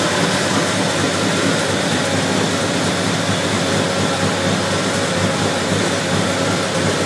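1951 Chevrolet half-ton pickup's inline-six engine running at a steady idle, heard close up under the open hood.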